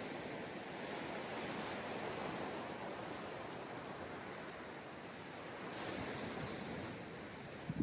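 Ocean surf washing steadily onto a beach. Near the end come a couple of brief, low bumps.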